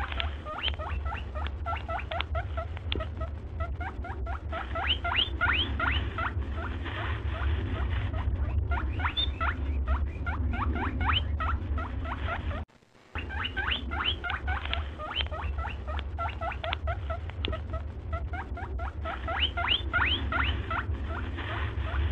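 Rapid high chirping squeaks, many short rising chirps in uneven clusters over a steady low hum. This is a looped background track: it cuts out for a moment about 13 seconds in and the same pattern starts again.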